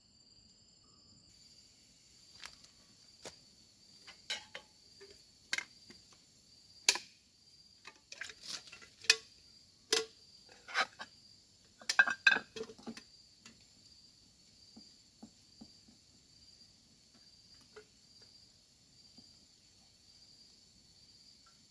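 Crickets chirring steadily in a high, pulsing drone. Over it, from about two seconds in to about thirteen seconds, comes a loose run of about a dozen sharp clicks and knocks, the loudest sounds, which then stop.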